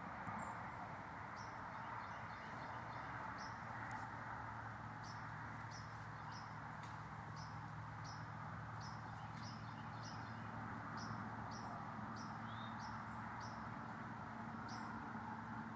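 Small birds chirping: many short, high chirps scattered throughout, over a steady background hiss.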